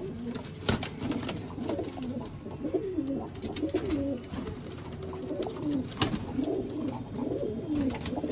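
A flock of domestic pigeons cooing, many overlapping rising-and-falling coos one after another, with two sharp clicks, one about a second in and one about six seconds in.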